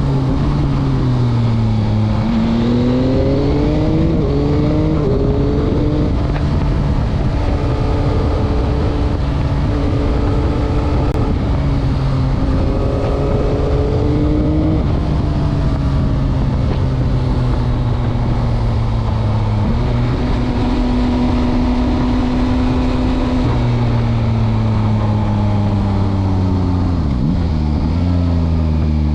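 Yamaha MT-09 2021 motorcycle's inline-three engine under way, its pitch falling as it slows, then climbing in a few short steps through the gears, holding steady, easing down, and rising and dropping again about 20 and 24 seconds in as the rider works through corners.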